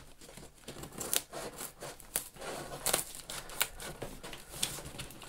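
Scissors cutting through thick packing tape along the seam of a large cardboard box: an irregular string of sharp snips, with the tape and cardboard crackling.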